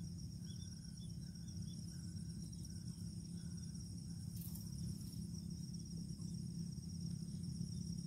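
Crickets trilling steadily in high, pulsing tones over a steady low hum, with faint short notes repeating about twice a second through the first few seconds.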